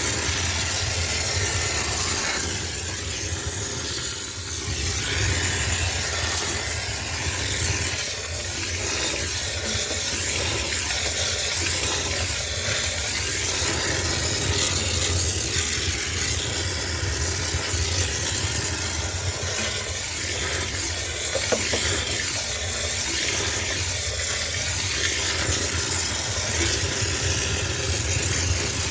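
High-pressure steam cleaner blasting steam in a steady hiss, with a low steady hum underneath.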